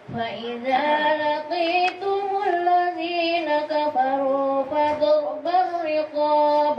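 A woman chanting Quran verses in the melodic tilawah style into a microphone. She holds long notes that bend and waver in pitch, separated by short breaths, and the first phrase begins just after a pause.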